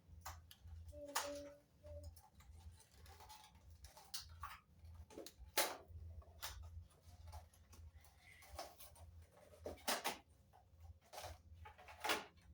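Hands handling gift packaging and its contents: scattered light clicks, taps and rustles, with a few sharper knocks about halfway through and near the end, over a faint steady hum.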